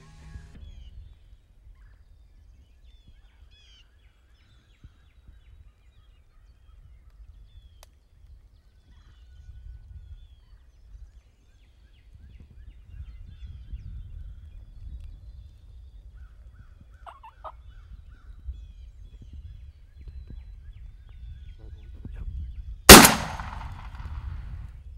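Wild turkeys calling softly, with faint bird chirps over a low rumble. About 23 seconds in, a single loud shotgun shot rings out and echoes.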